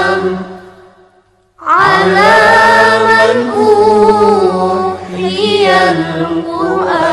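Arabic devotional chant (a salawat poem praising the Prophet and the Qur'an) sung in long, wavering melismatic notes. The voice fades out briefly about a second in, then comes back with a rising slide into the next line.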